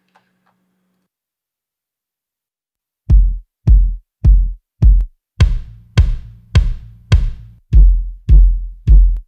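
Sampled acoustic kick drum from Logic Pro's library, playing a steady four-on-the-floor pattern of single hits a little under two a second, starting about three seconds in. About two seconds after it starts, the kick's sound changes to a longer, fuller thump as a different kick sample is auditioned.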